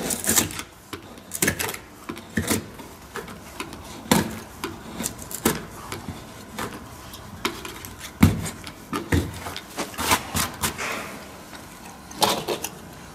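Utility knife blade cutting and scraping thick old adhesive off a motorhome's roof skin, in a series of irregular short scrapes.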